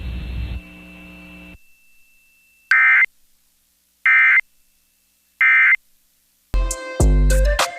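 Emergency Alert System end-of-message code: three short bursts of harsh digital data tones (the SAME 'NNNN' signal) about a second apart, marking the end of the test. Broadcast music starts again near the end.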